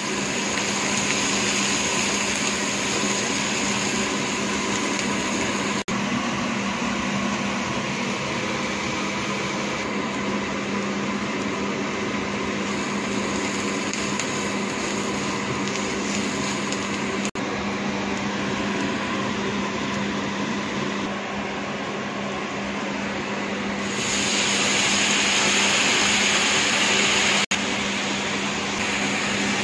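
Diced red onions sizzling in oil in a non-stick frying pan as they are stirred, over a steady machine hum like a kitchen fan. The hiss grows louder for a few seconds near the end, once the pan holds a bubbling brown sauce.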